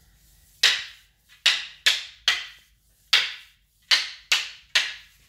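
Long wooden fighting sticks clacking together as strikes are blocked: eight sharp knocks, in two runs of a single knock followed by three quick ones.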